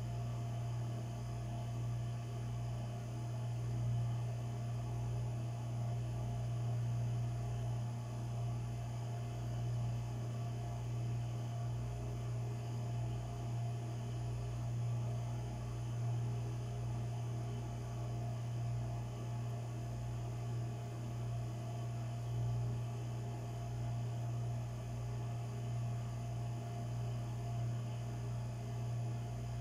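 A steady low hum, with a faint, uneven rumble beneath it.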